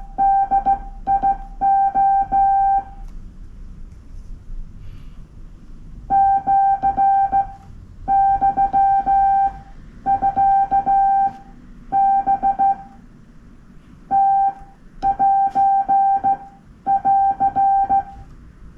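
Morse code (CW) sent by hand on a straight key: a steady mid-pitched beep keyed on and off in short and long elements, grouped into characters and words, with small clicks as the key makes and breaks. There is a pause of about three seconds after the first group before sending resumes.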